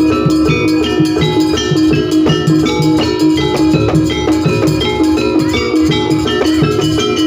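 Jaranan pegon music: gamelan-style metallophones playing a fast, repeating pattern over hand drums and a heavy bass.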